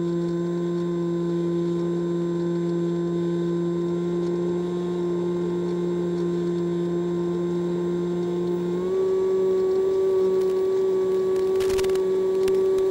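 The electric motor and propeller of a Multiplex EasyStar model plane, heard through the onboard camera as a steady whine that steps slightly higher in pitch about nine seconds in. A short crackle comes near the end.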